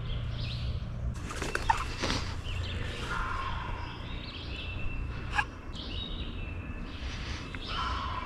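Songbirds chirping and singing in short, scattered calls over a steady low rumble. A sharp click or snap comes at about a second and a half in and another at about five seconds in, both louder than the birds.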